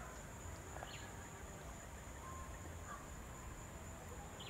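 Insects giving a steady, unbroken high-pitched drone over a low rumble, with a few faint short chirps.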